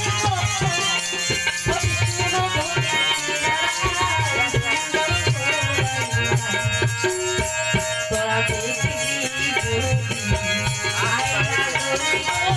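Baul folk music with a steady hand-drum beat and a shaken rattle keeping time under a melody, played loud.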